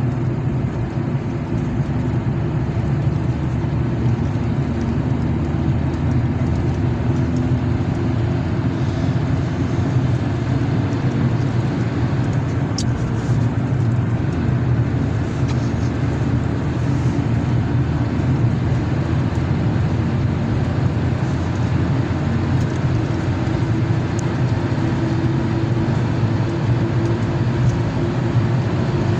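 Steady low rumble of a car driving, engine and road noise holding an even level, with no single car swelling past.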